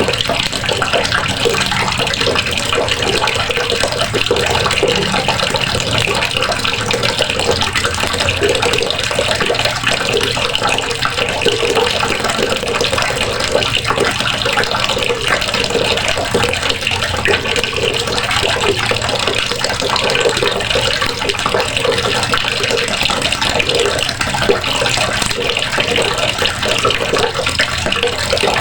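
Water running steadily from a faucet, splashing into a basin below.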